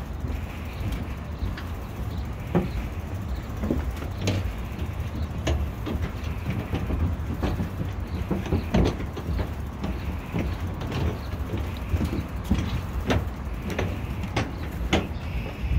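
Bicycle rolling along a wooden plank boardwalk, its tyres and frame knocking and rattling irregularly over the boards, over a steady low rumble.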